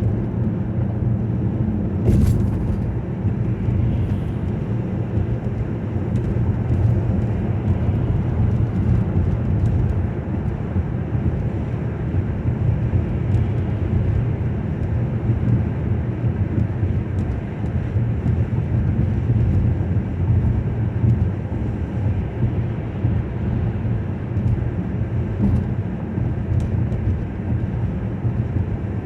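Steady road and engine rumble of a car being driven, heard from inside the cabin, with one sharp click about two seconds in.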